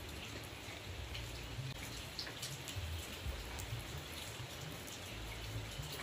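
Steady rain falling on foliage, with scattered sharp ticks of single drops over an uneven low rumble.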